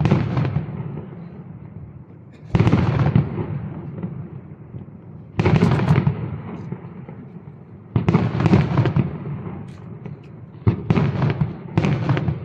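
Aerial firework shells bursting: about seven sudden bangs, each trailing off in a long echoing rumble, a few seconds apart at first and coming quickly one after another near the end.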